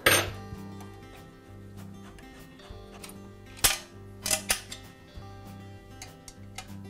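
Sharp metallic clacks of a wrench against the pressure washer's pump mounting bolts and frame as the bolts are taken out: one loud clack at the start, a quick cluster of three about four seconds in, then a fainter one near the end, over soft background music.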